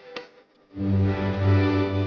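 Background music: a short near-silent pause, then a sustained low chord with held higher notes comes in just under a second in.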